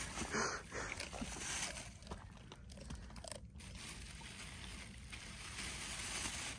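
A plastic carrier bag rustling and crackling as a hand rummages in it for meat, with faint chewing from a dog eating meat scraps.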